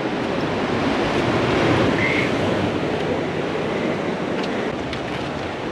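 Surf washing against a rocky shore, a steady wash of noise, with wind on the microphone.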